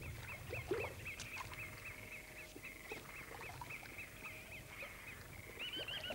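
An animal calling in a fast, regular run of short high chirps, about four a second, which changes to a higher, quicker series of chirps near the end. A brief, louder, lower sound comes about a second in.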